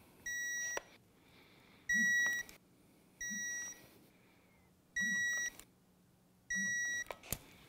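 Digital torque wrench beeping five times, about every one and a half seconds: a short high beep each time a cover bolt reaches its set torque of 9 foot-pounds.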